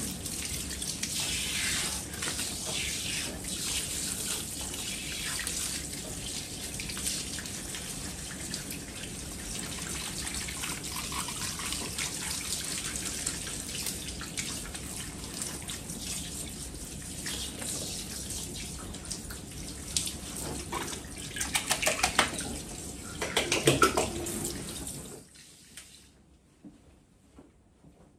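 Handheld shower sprayer at a salon shampoo basin rinsing hair: a steady spray of water running over the head and into the sink, with some louder, uneven splashing, then shut off near the end.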